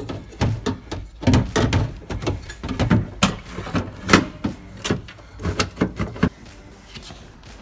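Irregular clicks and knocks of a side load door latch mechanism, fitted with its internal security shield, being handled and fitted back into the cavity of a van's sliding door; the knocking stops about six seconds in.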